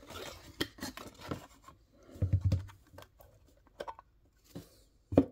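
A plastic display case being slid out of its cardboard box and handled: scattered light clicks, taps and scrapes, with a louder dull bump a little past two seconds in and a sharp click near the end.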